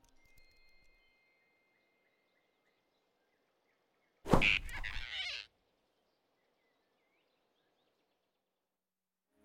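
A sudden loud snatching sound effect about four seconds in, lasting just over a second and cutting off sharply, as the giant cartoon rabbit grabs the flying squirrel off the branch. Around it is near silence with a few faint bird chirps.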